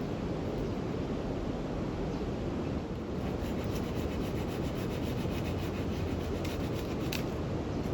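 A steady low rumble, with a run of quick, even scraping strokes from about three to seven seconds in.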